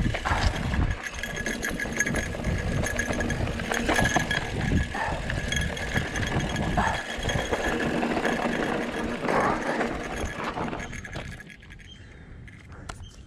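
Mountain bike rolling over a rough dirt-and-gravel singletrack: tyres crunching, the bike rattling over stones, and wind buffeting the camera's microphone. It gets much quieter about eleven seconds in.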